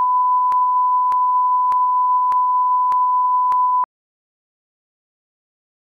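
Censor bleep: one steady, high, pure beep tone lasting about four seconds over the profanity, cutting off abruptly.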